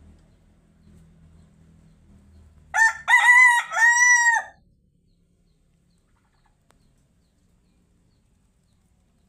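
A rooster crows once, a loud cock-a-doodle-doo in about four notes lasting just under two seconds, starting about three seconds in.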